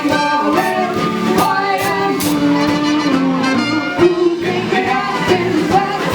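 Upbeat music with brass, a steady beat and a singing voice.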